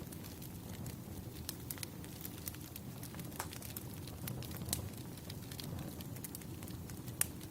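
Wood fire crackling: irregular sharp pops and snaps over a low, steady rumble of burning logs, with one louder pop near the end.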